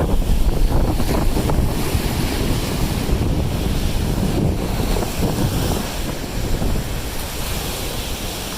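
Lake Erie waves washing and breaking on a sand beach, with strong wind buffeting the microphone.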